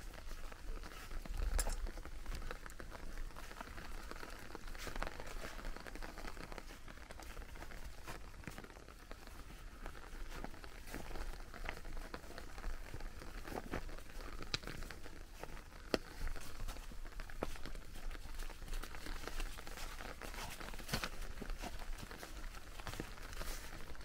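Footsteps rustling through wet fallen leaves with a light, continual patter of rain, scattered with small drips and ticks.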